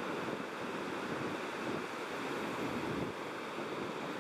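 Ocean surf rolling in and washing up the beach: a steady rushing wash of waves.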